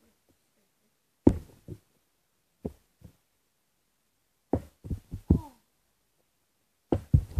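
Plastic bottle partly filled with water being flipped and landing: a single thud about a second in, two light knocks a little later, then two clusters of quick thuds as the bottle hits the floor and bounces or tumbles.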